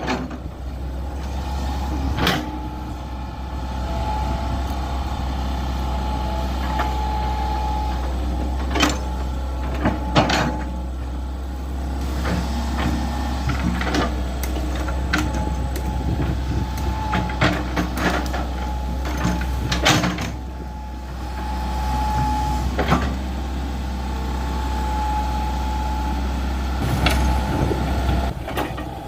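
Excavator's diesel engine running steadily under load while it digs a trench. A whining tone comes and goes over the engine, and sharp clanks sound every few seconds.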